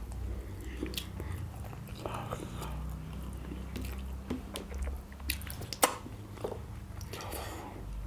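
Close-up eating sounds of chicken curry and rice: chewing, biting and lip smacks, with irregular small clicks and one sharp click about six seconds in.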